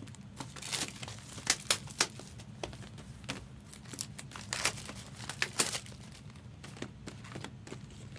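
Plastic shrink wrap crinkling and card boxes being handled, in scattered sharp crackles and clicks, over a faint steady low hum.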